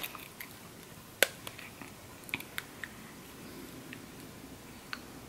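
A few faint, sharp clicks, the loudest about a second in. They come from a homemade fake-braces band, a rubber band threaded with small metal earrings, being fitted over the front teeth by hand.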